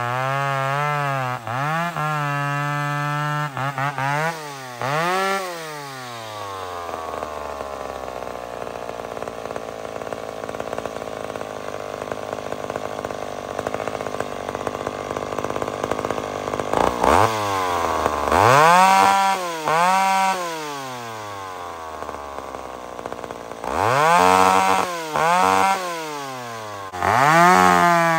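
Two-stroke chainsaw idling with quick throttle blips, then held at high revs for about ten seconds while the chain cuts through wood. It then drops back toward idle with several sharp revs.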